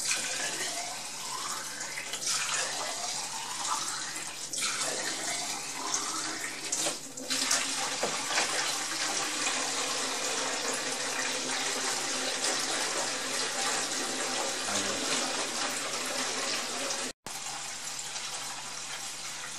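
Warm tap water running steadily through a plastic hose, filling the water bath of a Jobo CPE2 film processor. Over the first few seconds the pitch of the filling rises several times. The sound cuts out for an instant near the end.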